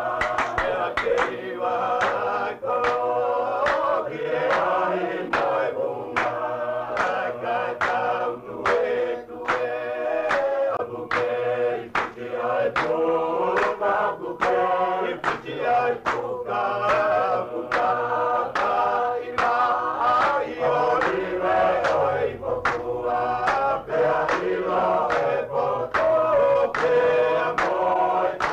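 A group of voices, men among them, singing a song together in harmony over a steady beat.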